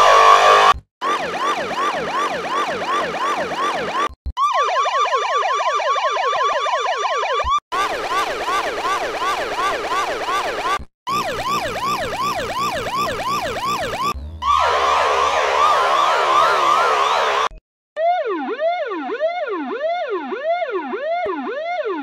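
Police car siren played as a run of electronically altered versions, each about three seconds long with a brief cut between them. It yelps rapidly up and down in pitch, several sweeps a second. In the last version, near the end, it is slowed down and lower, sweeping about twice a second.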